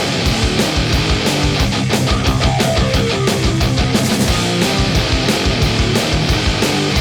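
Loud heavy-metal style rock music with distorted electric guitar and a fast, steady drum beat.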